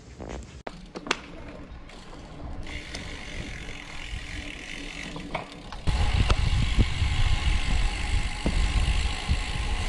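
Wind buffeting the microphone of a handlebar-mounted action camera on a moving road bike, with road rumble. It is fairly quiet at first, then much louder and rougher from about six seconds in.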